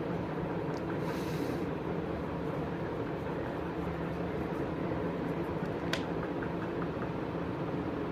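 Steady low hum and rumble of a running machine, with a single sharp click about six seconds in.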